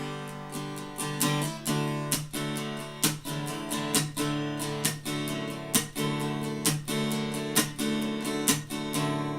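Acoustic guitar strummed in a steady rhythm, about two strums a second: an instrumental break in a folk song.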